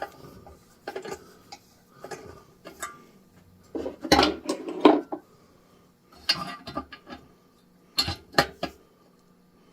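Metal hand tools clinking and scraping in several short bursts, as a binding threading tool is backed out of the engine block and cleaned.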